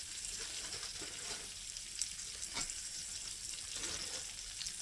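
Food sizzling steadily on a hot griddle, a continuous frying hiss with a couple of light clicks.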